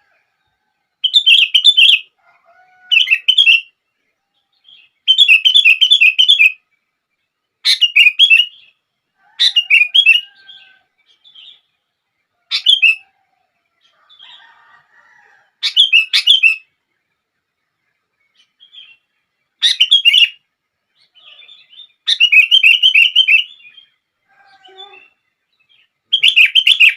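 Sooty-headed bulbul (kutilang) singing vigorously: about a dozen short, bubbly, warbling phrases of a second or so each, with brief pauses between and faint softer calls in the gaps. This is a lure song of the kind used to set other bulbuls singing.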